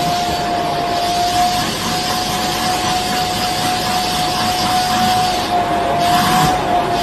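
Vacuum cleaner running steadily, a constant rushing noise with a single high whine held across it, as the hose nozzle sucks at a cat's tail.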